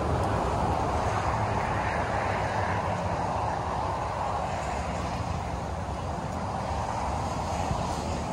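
Steady roar of highway traffic on Interstate 95 passing beneath the bridge, a continuous wash of tyre and engine noise.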